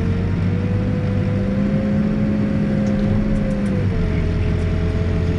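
Backhoe's diesel engine running steadily, its pitch rising a little about a second and a half in and settling back down near the four-second mark.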